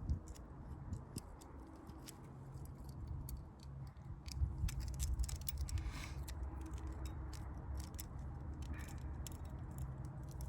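Chainsaw chain being handled and fitted around the bar of a Stihl MS 250, its loose links clicking and rattling in irregular small metallic ticks.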